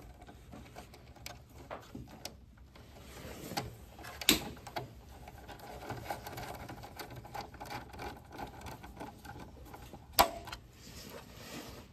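A T15 screwdriver driving a screw into a plasma cutter's chassis, with light ticking and handling noises throughout. Two sharp clicks stand out, one about four seconds in and one near the end.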